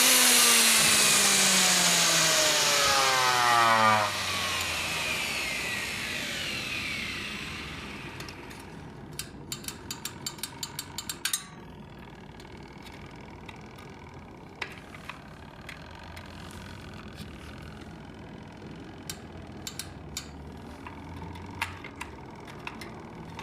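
Mixer grinder's electric motor running loudly with its pitch falling steadily, then switched off about four seconds in and winding down over the next few seconds. After that come scattered light clicks and taps.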